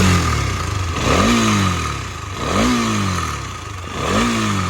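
KTM Duke motorcycle engine being blipped, revving up and dropping back three times about a second and a half apart. The owner says a light abnormal engine noise appears only when the revs are released.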